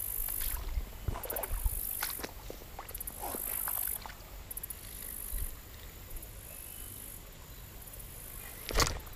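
Shallow creek water sloshing and splashing lightly around a wading person's feet, with scattered small knocks, and a louder brief splash or thump near the end.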